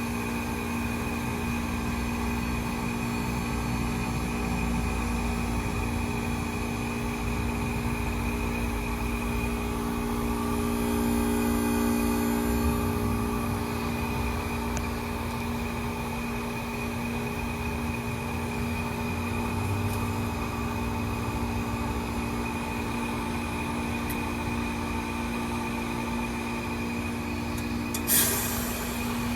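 Carrier Comfort 10 heat pump's outdoor unit running through defrost, its compressor giving a steady hum and whine. Near the end a sudden loud whoosh of refrigerant cuts in and fades over about a second: the reversing valve shifting as defrost ends.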